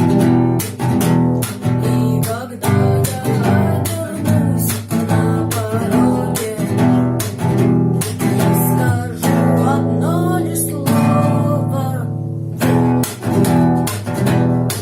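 Acoustic guitar strummed in a steady, driving rhythm of chords.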